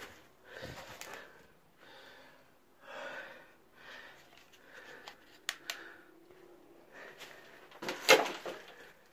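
A person breathing heavily close to the microphone, a soft in-and-out about once a second. Sharp knocks come about five and a half seconds in, and a louder clatter comes about eight seconds in.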